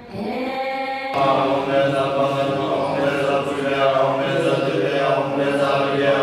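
Tibetan Buddhist monks chanting in unison in steady, droning voices. A held tone slides upward in the first second, then a new passage of group chanting starts abruptly about a second in.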